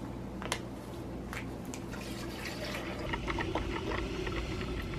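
A few light clicks and rustles as ground coffee is poured into a paper filter, then a drip coffee maker brewing: coffee dripping and trickling into the glass carafe in many small ticks over a low hum.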